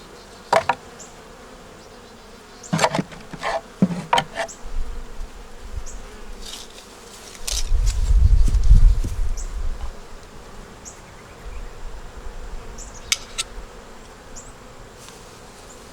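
Honey bees humming around an opened hive, with several sharp knocks and clicks of hive parts being handled, mostly in the first few seconds. A low rumble swells up about halfway through and fades.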